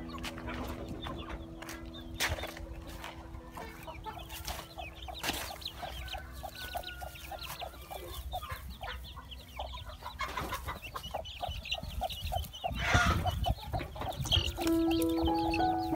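Domestic hen clucking in a run of short repeated clucks, with her chicks peeping in short high calls. Music comes in near the end.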